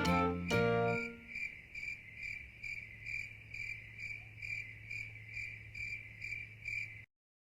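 Background music ends about a second in, followed by a cricket chirping in a steady rhythm, a little over two chirps a second, which cuts off suddenly just before the end.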